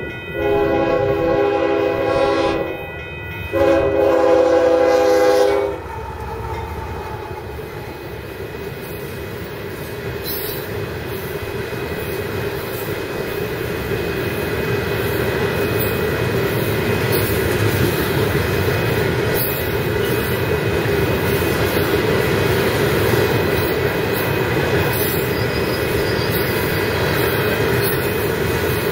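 Union Pacific GE Evolution-series freight locomotive sounding its horn in two long blasts for a grade crossing. A loaded rock train's hopper cars then roll past with a steady rumble and wheel clatter that grows slowly louder.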